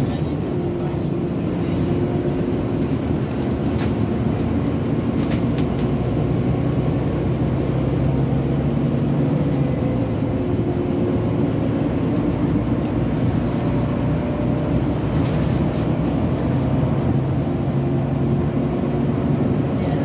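Volvo B9TL double-decker bus heard from inside the saloon while under way: its Volvo D9B diesel engine and driveline drone steadily, with a vacuum-cleaner-like 'hoover' whine that this bus has picked up. A couple of light rattles come a few seconds in.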